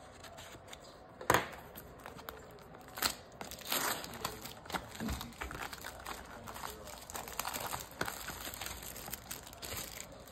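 Trading-card packaging being torn open and crinkled by hand: one sharp snap about a second in, then a run of crackling and tearing from the wrapper.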